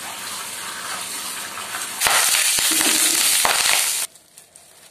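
Tap water running onto vegetable pieces being rinsed by hand in a plastic colander, then about two seconds in an abrupt switch to tofu cubes frying in hot oil in a wok, a louder sizzle with scattered crackles. A little after four seconds the sizzle stops suddenly and it goes much quieter.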